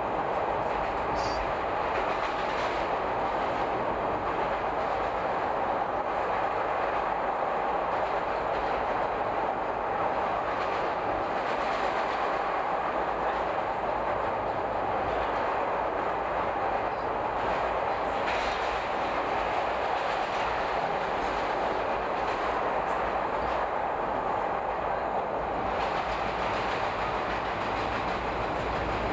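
Chicago subway train running through a tunnel: a steady noise of wheels on rail and the moving car, with a few faint knocks, heard from inside the car.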